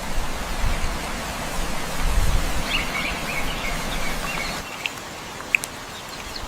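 Steady rain falling, with a few short bird chirps about two and a half seconds in and a couple of sharp ticks near the end.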